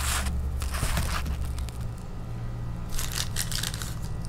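Clear plastic bag crinkling in short bursts as a small sample jar is unwrapped from it, near the start and again about three seconds in, over a steady low hum.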